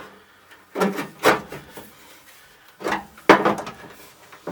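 Hand-work on the light switch assembly as it is taken back apart: two bursts of knocking, clattering and scraping of parts, about a second in and again around three seconds in.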